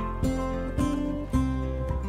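Background music: acoustic guitar picking single notes, about two a second, each ringing and fading.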